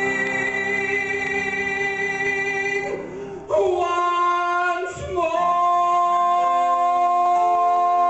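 Male singer belting a long held note over accompaniment. The note breaks off about three and a half seconds in, and he comes straight back in on a new high note, sliding up slightly and then holding it steadily.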